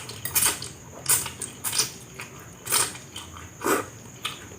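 Close-miked eating of fried noodles: a string of about eight short, sharp smacking and scraping noises, spaced irregularly, from chewing and a utensil against the bowl.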